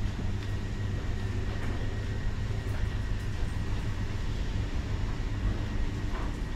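Steady low-pitched machinery hum filling a steel ship's corridor, an even drone that holds the same pitch throughout.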